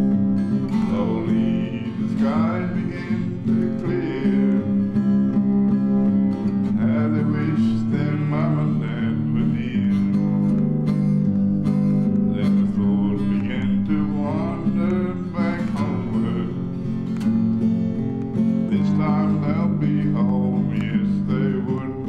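Background music led by acoustic guitar, with sustained chords under a changing melody line.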